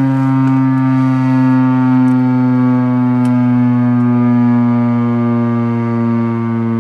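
Federal Signal STH-10 outdoor warning siren sounding a loud, steady low tone that slowly falls in pitch.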